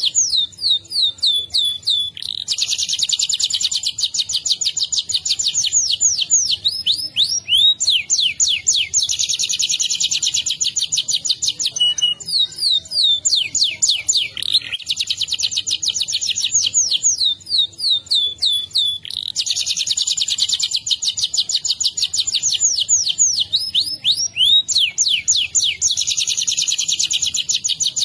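Domestic canary singing a long rolling song without pause: fast trills held for one to three seconds at a time, alternating with runs of quick sweeping notes.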